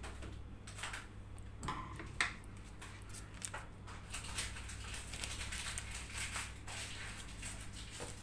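Scissors snipping the tip of a plastic piping bag, a few sharp clicks in the first few seconds, then the plastic piping bag crinkling and rustling as it is squeezed to pipe buttercream, over a low steady hum.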